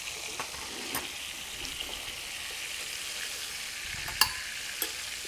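Fish frying in hot oil in a cast-iron skillet: a steady sizzle. A few sharp clicks sound over it, the loudest about four seconds in.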